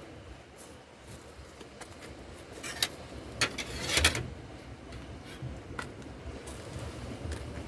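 A steady low rumble of wind on the microphone. About three to four seconds in comes a cluster of clicks and rustles from fishing tackle being handled close by.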